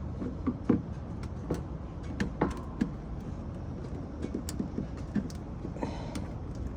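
Scattered sharp clicks and light knocks of a screwdriver working at small plastic trim fasteners on a car panel, over a steady low rumble.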